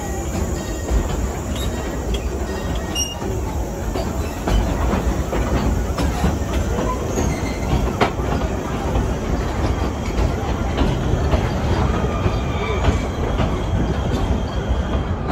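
Theme-park railway train rolling along its track, heard from on board: a steady rumble with a few sharp clicks of the wheels over the rails and a faint wheel squeal near the end.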